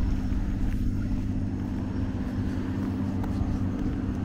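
A motor engine running steadily, a low even hum that holds without change.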